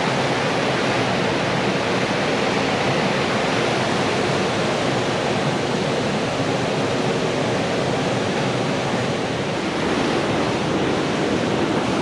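Fast-flowing mountain river rushing over rocks: a steady, unbroken rush of white water.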